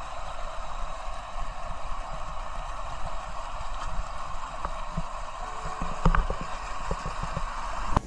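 Muddy runoff water gushing over rocks into a flooded field: a steady rushing, splashing sound.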